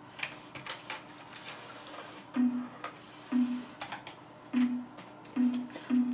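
Computer keyboard keys clicking and clattering irregularly as a Eurasian red squirrel scrabbles over them. A short low tone sounds five times, each under half a second, louder than the clicks.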